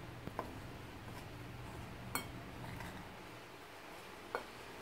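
A fork stirring dry flour mix in a ceramic bowl, with a few faint clinks of metal on the bowl, the loudest about two seconds in.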